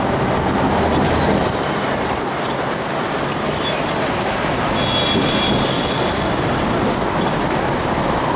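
Hong Kong double-decker electric tram running along its street track, heard on board: a steady rumble of wheels and running gear mixed with wind noise. A faint high whine rises briefly about five seconds in.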